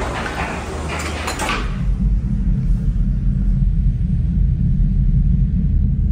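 Ropeway gondola cabin leaving its station: clattering with a few sharp clinks for the first second and a half as it runs through the station, then a steady, loud low rumble once it is out on the cable.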